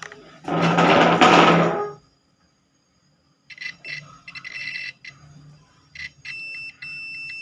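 Multimeter continuity tester beeping: after probe clicks and brief chirps, a steady high beep holds for nearly two seconds near the end, with one short break, showing that the iron's power cord conducts. Before it, a loud scraping noise lasts about a second and a half.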